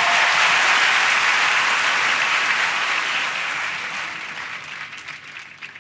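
Studio audience applauding, loudest at the start and slowly dying away toward the end.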